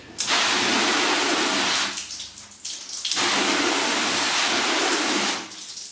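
Water spraying from a hose nozzle onto a car bonnet in two bursts of about two seconds each, with a short pause between them.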